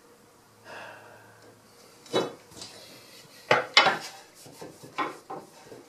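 A 5/8-inch aluminium tube for a wing-tip bow clanking against the plywood bending form and workbench as it is lifted and repositioned: a soft rustle about a second in, then sharp metallic knocks that ring briefly, one about two seconds in, a quick pair near the middle and two more near the end.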